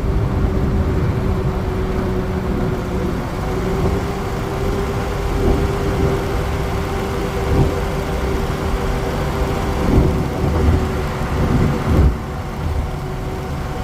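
In-cab highway drone of a Ford E350 van with a 6.0 Powerstroke V8 turbo-diesel, slowing from about 80 mph with the throttle backed off. Engine, tyre and wind noise mix into a steady rumble with one steady tone through it, and a few short thumps from the road toward the end.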